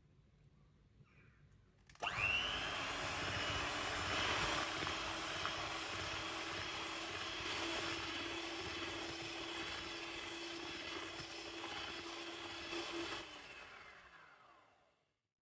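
Electric hand mixer switched on about two seconds in, its motor whining steadily as the twin beaters whip a sour cream and heavy cream filling. Near the end it is switched off and its pitch falls as it winds down.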